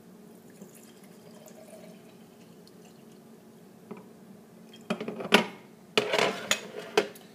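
Near-quiet kitchen background, then from about five seconds in a quick run of knocks and clinks as glass and plastic bottles and a jar are set down and handled on a counter.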